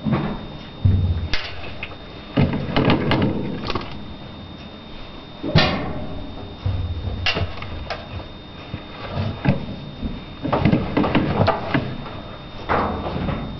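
Laundry being handled and loaded: irregular rustling of clothes with knocks and bumps, two of them sharp, about halfway through.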